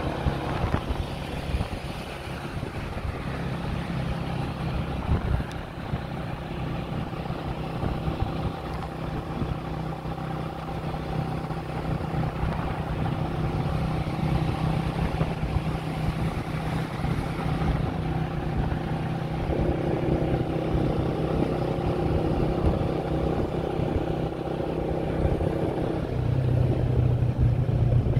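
Motorcycle engine running steadily at riding speed, under wind and road noise. Near the end the engine note gets louder.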